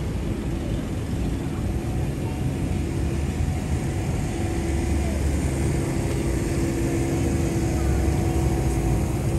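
Steady low hum of vehicle engines in city street traffic, with a constant droning tone running through it.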